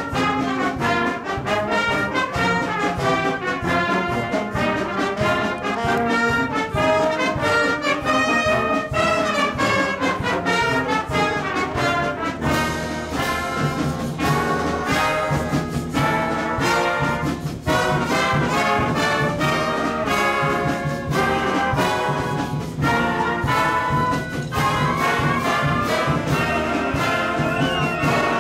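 Concert band playing with the brass to the fore: trombones and trumpets over woodwinds. A steady, driving beat comes in about halfway through.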